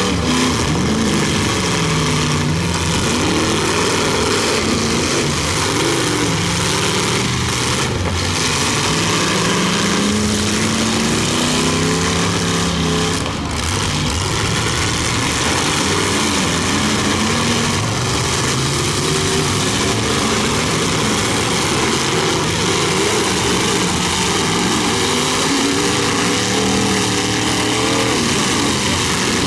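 Several big demolition-derby cars' engines running at the same time, their pitch rising and falling as the drivers rev, over a continuous dense roar.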